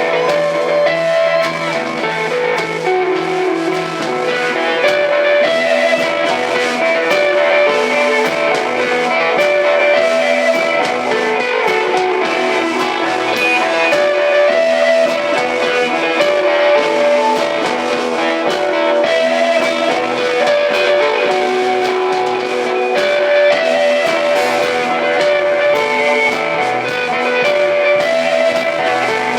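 Live rock band playing an instrumental, psychedelic-sounding passage: amplified electric guitar holding and shifting long notes over bass and drums, loud and unbroken throughout.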